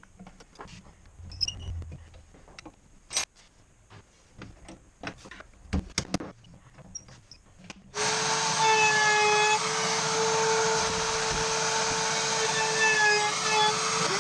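Faint clicks and knocks of hands setting up at a router table, then about halfway through a table-mounted router switches on suddenly and runs steadily at high speed with a steady whine.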